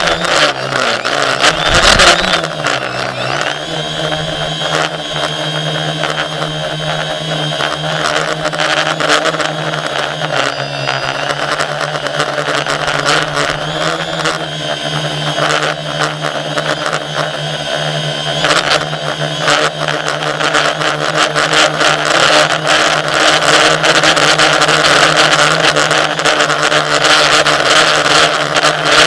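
A motor or engine running at a steady pitch after rising over the first few seconds, with dense rapid clicking or rattling over the hum.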